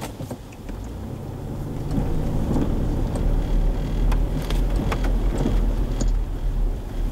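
Low road and engine rumble inside a moving car, growing louder about two seconds in, with a few faint clicks.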